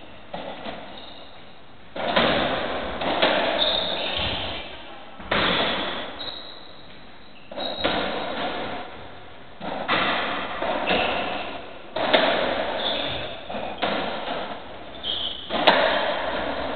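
Racketball rally on a squash court: the ball is struck by rackets and hits the walls and glass in repeated sharp knocks about every one to two seconds, each ringing on in the court's echo, with brief high squeaks of trainers on the wooden floor.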